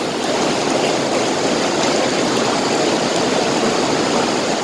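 Heavy rain pouring down in a steady, even rush of water.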